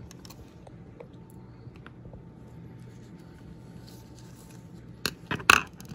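Handheld UV curing lamp being handled and set down on a sheet of glass: a few faint clicks, then two sharp knocks about five seconds in. A faint steady low hum sits underneath.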